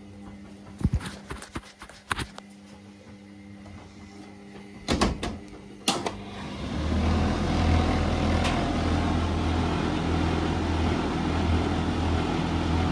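Indesit washing machine and tumble dryer running with a steady low hum, broken by a few sharp clicks and knocks in the first six seconds. About six and a half seconds in, a machine starts up into a much louder steady low drone with a rushing sound over it.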